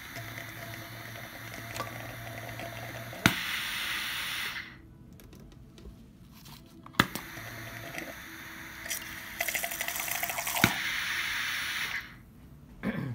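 Hibar 4F2C dispensing pump self-priming: a sharp click with each cycle, about every three and a half seconds, with water and air hissing and spurting from its small nozzle into a beaker.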